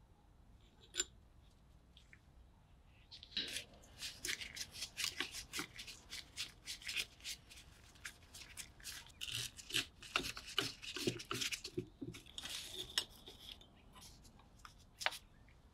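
Flat-blade screwdriver working a rusty screw out of a hoof knife's handle. A run of short, gritty metal scrapes and clicks starts about three seconds in and lasts about nine seconds, with a lone click about a second in and another near the end.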